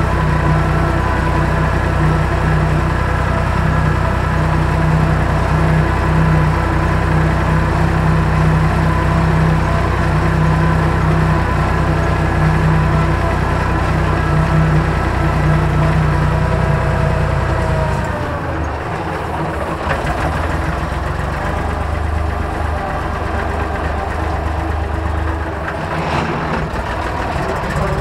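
Farm tractor's diesel engine running steadily under load while pulling an orchard sprayer, heard from the driver's cab. About two-thirds of the way through, the engine note drops and gets quieter, as the tractor turns at the end of a row.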